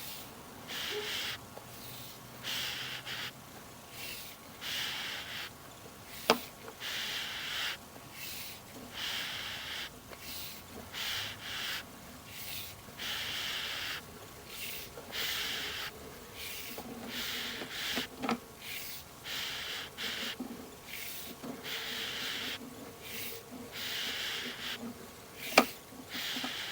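Sewer camera push cable being pulled back out of the line by hand, rasping in short strokes about once a second. A couple of sharp clicks stand out, one about six seconds in and one near the end.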